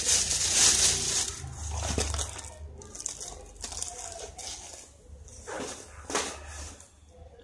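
Cardboard firecracker packets being handled and shuffled: a loud papery rustle for about the first second, then scattered fainter rustles and light knocks.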